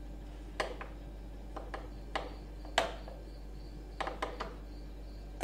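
A spoon clinking and scraping against a mixing bowl as batter is spooned out, about ten sharp knocks in irregular clusters, the loudest a little under three seconds in.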